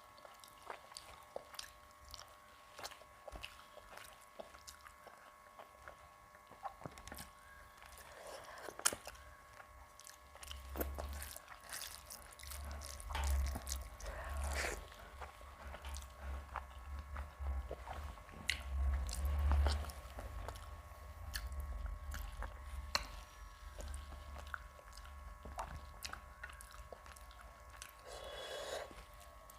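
Close-miked mouth sounds of a person eating rice with curry: chewing and biting with many small irregular wet clicks and smacks, heavier in the middle stretch. A faint steady hum lies underneath.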